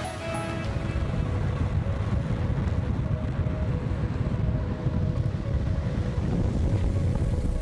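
Wind buffeting a microphone moving fast downhill: a steady, heavy low rumble, mixed with the roll of longboard wheels on asphalt.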